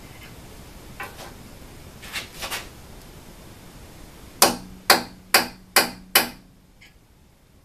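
Hammer tapping on the aluminium plates and frame of a CNC router: a few light knocks, then five sharp strikes about half a second apart, each with a short metallic ring.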